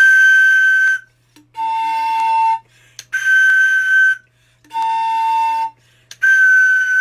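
A whistle blown in five held notes of about a second each, alternating high, low, high, low, high, a seesaw up-and-down pattern.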